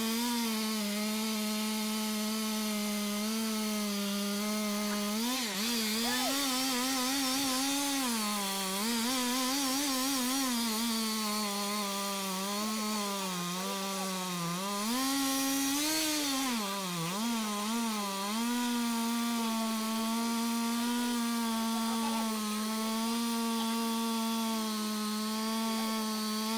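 Large two-stroke chainsaw with a long bar running at full throttle while cutting into the trunk of a very big tree. Its pitch holds steady but dips several times as the chain bogs down in the wood, then picks back up.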